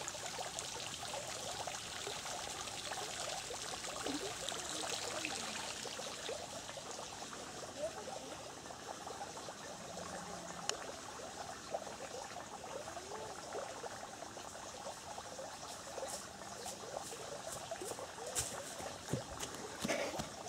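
Water trickling and gurgling steadily, as from a small fountain or stream, with a few soft clicks near the end.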